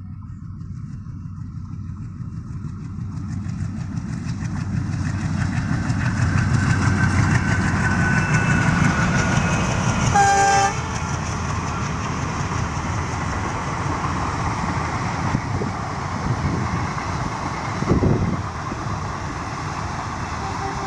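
Passenger train approaching and passing close by. The rumble of the locomotive and wheels grows louder over the first several seconds, a short horn blast sounds about halfway through, and then the coaches roll past with steady wheel noise.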